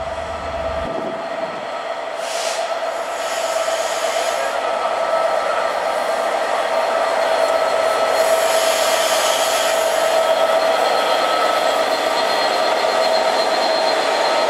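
Class 67-hauled passenger train running into the platform, growing louder as the coaches pass. A steady high whine sits over the rumble, with patches of hiss a few seconds in and again about halfway through.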